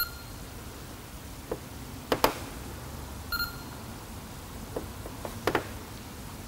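Electronic paint thickness gauge beeping as it takes readings on a car's sanded clear coat: short beeps about three seconds apart, with a couple of sharp taps in between.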